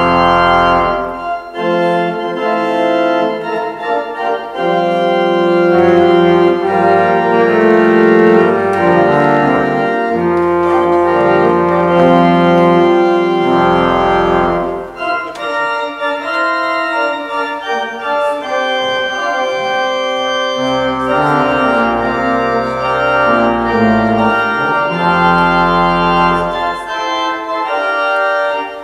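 Church organ playing slow, sustained chords over low bass notes, in two phrases with a short break about halfway through.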